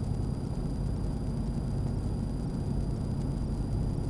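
Steady low rumble of a Ford F350 diesel pickup and its tyres heard from inside the cab while cruising on the highway, with a faint, steady high-pitched whine over it.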